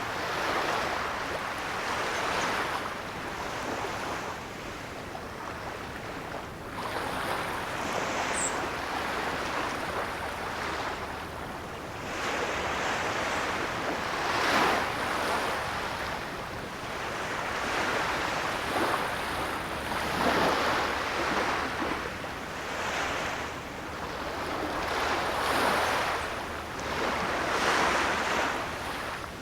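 Ocean surf washing onto a shore, with waves swelling and falling back every two to three seconds.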